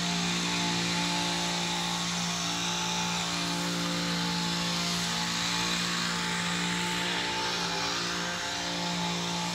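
A gardener's small engine-powered machine running steadily, a constant hum with a hiss above it, easing off slightly near the end.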